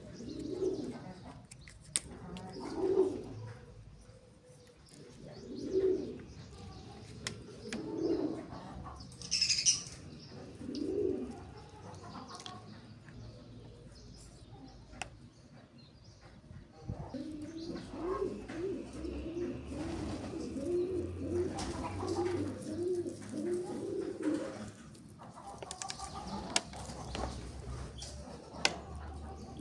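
Doves cooing: single low coos every two to three seconds, then from about halfway a longer run of quick coos. Light clicks from the plastic water bottle being handled come and go underneath.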